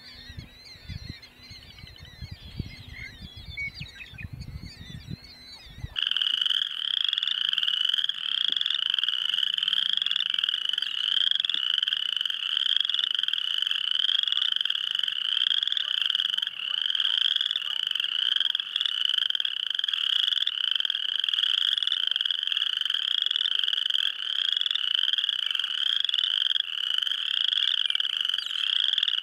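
Dense frog chorus of many frogs calling at once, a steady mass of rising trills, starting abruptly about six seconds in. Before it, faint scattered bird calls with a few low thumps.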